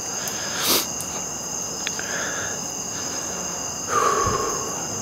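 Steady chorus of insects calling in the woods. A short breath comes about a second in, and a longer breathy exhale follows near the end.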